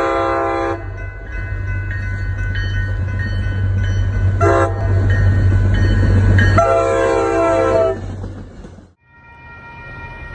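MBTA HSP46 diesel locomotive sounding its air horn for a grade crossing. A long blast ends about half a second in, a short toot comes about four and a half seconds in, and a long blast follows from about six and a half to eight seconds. Under the horn, the train's low rumble grows louder as it approaches, and the sound cuts off near nine seconds.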